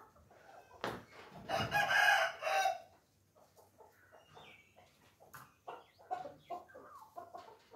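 A loud, drawn-out fowl call lasting about a second and a half, starting about a second in, followed by a run of short clucking calls.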